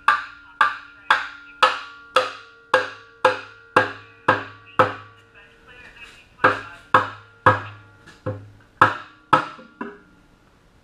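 Metal hammer strikes on the oil pan of a Honda R18A1 engine, about two a second, each with a short metallic ring, trying to break loose a pan glued on with gray silicone. Ten blows, a short pause, then seven more.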